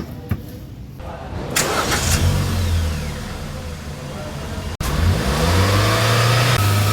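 Hyundai i20 engine and exhaust running: a low idle, then after an abrupt cut the engine revs up, its pitch rising, and holds steady at a raised speed.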